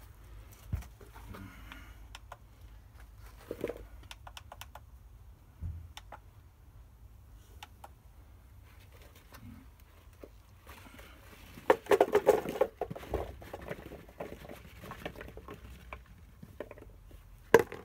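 Potatoes being picked out of tipped-out pot compost and handled: scattered small knocks, clicks and rustles, with a louder burst of clattering and rustling about twelve seconds in.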